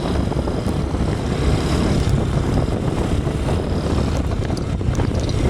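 Steady low vehicle rumble of engine and road noise, with wind buffeting the microphone.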